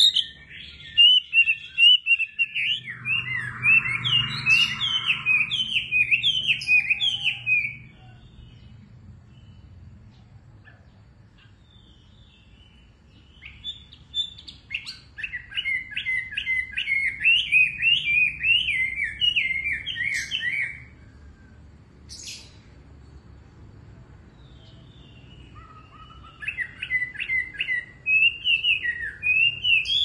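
A caged Chinese hwamei (wambi) singing in full voice, in loud bouts of rapid, varied whistled notes. Three bouts are separated by pauses of several seconds.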